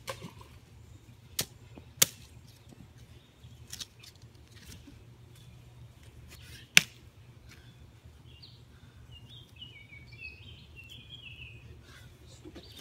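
Hatchet striking a smashed iPod on the lawn: a few sharp hits, the loudest about two seconds in and another near seven seconds. Birds chirp through the second half.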